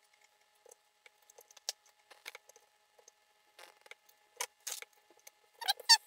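Knife cutting a fish fillet into chunks on a plastic cutting board: scattered light clicks and taps of the blade meeting the board, with a few louder taps and a quick cluster near the end.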